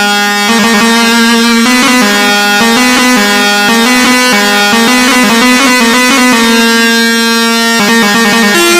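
Egyptian sha'bi instrumental music led by an oriental electronic keyboard ('org'): a synthesizer melody of held notes, changing pitch about every half-second to second, over a steady accompaniment, with no singing.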